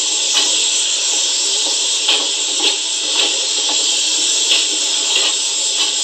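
Steady hiss of escaping steam from a steam locomotive, played from a vinyl 45 record through a portable turntable's small speaker, with irregular clicks every half second or so.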